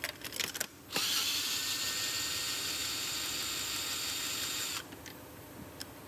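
Drill spinning a loosened spark plug out of the cylinder head. A few clicks as the socket is seated, then the drill runs at a steady, high-pitched whine for about four seconds and stops suddenly.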